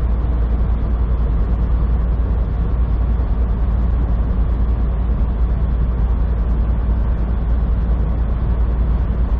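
Semi truck's diesel engine running steadily, with tyre and road noise, heard from inside the cab at highway speed: a constant deep drone with a hiss above it.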